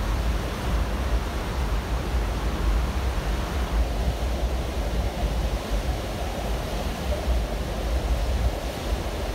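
Steady rushing of a cruise ship's churning wake behind the stern, with wind buffeting the microphone in a constant low rumble.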